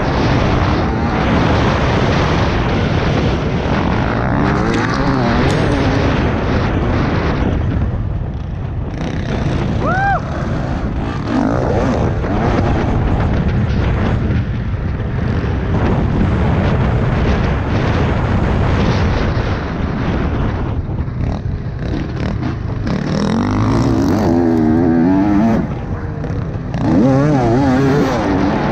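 2020 TM 300 EN two-stroke dirt bike engine revving up and down hard under throttle, its pitch rising and falling through the gears, with heavy wind noise buffeting the microphone.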